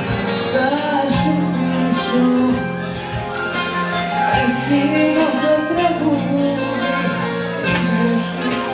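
Live band playing a Greek popular song: a winding melody line over sustained chords, with occasional percussion hits.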